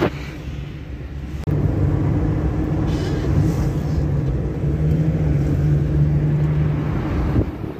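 Steady low engine and road noise of a moving car, heard from inside the cabin, stepping up suddenly in level about a second and a half in.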